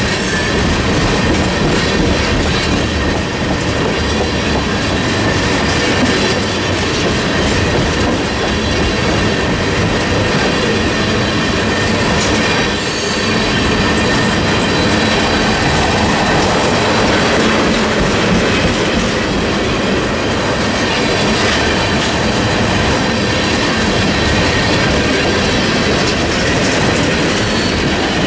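Freight train of tank cars rolling past close by: a steady rumble and clatter of steel wheels on the rails, with brief high wheel squeals a few times.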